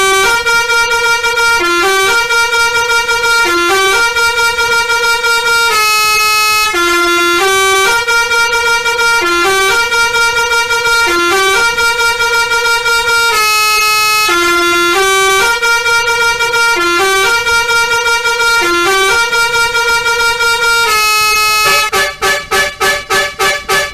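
Bus 'telolet' Basuri multi-tone air horn playing a loud melody of held and short notes in repeating phrases. About 22 seconds in it switches to rapid staccato notes, about four a second.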